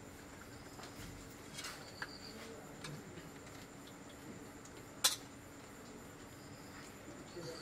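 A metal serving spoon clinking lightly against a metal curry pot and a steel plate as fish curry is served onto rice: a few sparse clinks, the sharpest about five seconds in.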